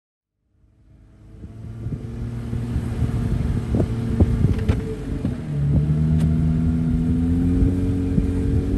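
A vehicle's engine running as it drives along a snow-covered road, fading in about a second in, its pitch stepping up a little partway through, with scattered knocks and rattles.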